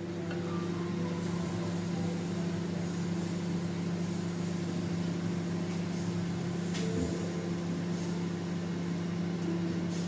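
Microwave convection oven running while it preheats to 180 degrees: a steady electrical hum with its fan, with a few faint ticks.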